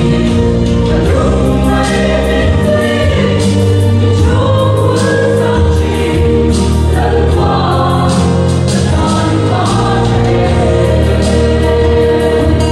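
A church choir singing a gospel song in several-part harmony with sustained notes, over instrumental accompaniment with deep bass notes that change every second or two.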